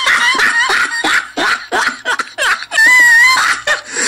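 A teenage boy laughing in short, choppy bursts, then letting out one long, very high-pitched squeal that wavers slightly, about three seconds in.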